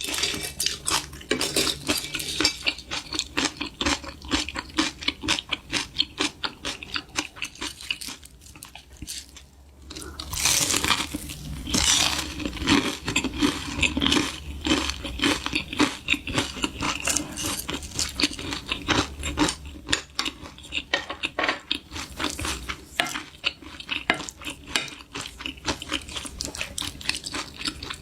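Utensils clinking and scraping against dishes in quick, irregular succession, with a denser, noisier stretch near the middle.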